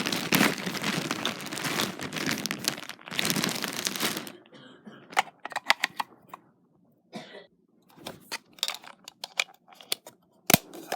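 Packaging crinkling and rustling for about four seconds, then scattered light clicks and taps, with one sharp knock near the end, as the toy and its batteries are handled.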